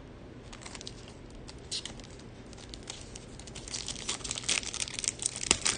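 Plastic wrapper of a Topps Chrome card pack crinkling and tearing as it is opened by hand. The crackling grows denser and louder toward the end.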